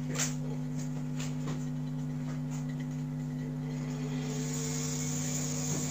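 A steady low hum with a few faint clicks, and a faint hiss coming up about four seconds in.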